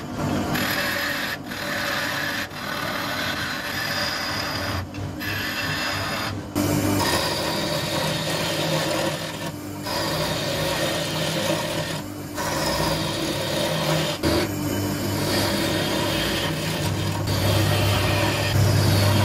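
A wood lathe running while a gouge cuts the spinning apple-wood blank: a steady rasping scrape that breaks off briefly every few seconds as the tool lifts. A steady low machine hum runs underneath.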